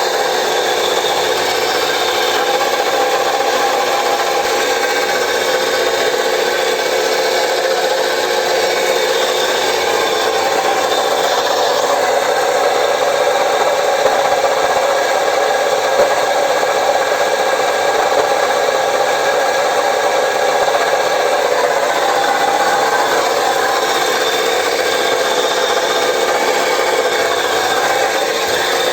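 Alternator on a 2015 Chevrolet Cruze 1.6 droning steadily while the engine runs, a rasping whine with several steady tones over it: the sound of a worn alternator bearing.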